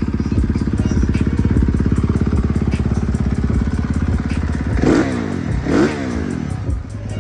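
Husqvarna 450 dirt bike's single-cylinder four-stroke engine running, with two quick throttle blips about five and six seconds in, each rising and falling in pitch.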